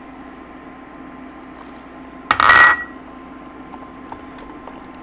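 A small glass bowl is set down on a hard countertop: one short clattering clink with a brief ring, about two and a half seconds in, over a steady low hum. Faint light ticks follow.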